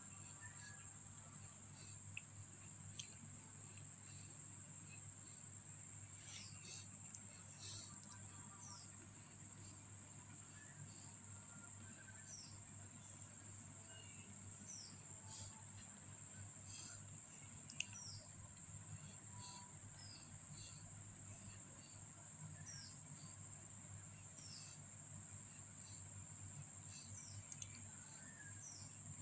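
Near silence: faint background with a steady high-pitched whine, a low hum, and scattered faint short chirps.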